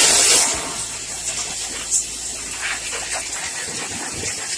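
Portland 1750 PSI electric pressure washer spraying a high-pressure jet of water: a loud hiss that drops in level about half a second in and then runs on steadily, with one short sharp sound about two seconds in.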